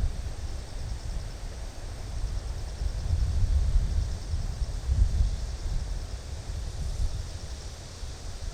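Wind buffeting the microphone in uneven gusts, with a faint, rapidly pulsing trill of grass insects high above it.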